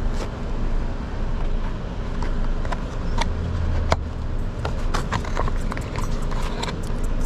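Steady low engine rumble of a vehicle, with scattered light clicks and knocks.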